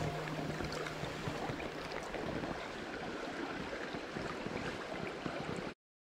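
Mountain stream water flowing over rocks, a steady rushing hiss that cuts off abruptly near the end.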